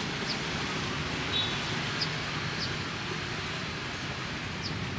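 Street market ambience: a steady wash of background noise, with a few short, faint, high chirps scattered through it.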